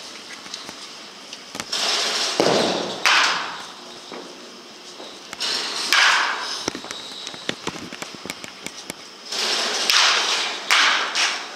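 Wooden baseball bat hitting pitched balls in an indoor batting cage: a sharp crack every few seconds, each with a brief echo.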